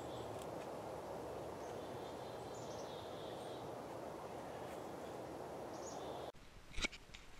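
Steady outdoor forest background hiss with a few faint, short high-pitched bird chirps. About six seconds in, the hiss cuts off abruptly to a much quieter background, followed by a couple of small clicks.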